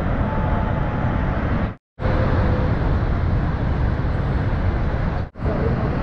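Steady roar of the American Falls at Niagara, falling water heard from across the river. It cuts out briefly twice, about two and about five seconds in.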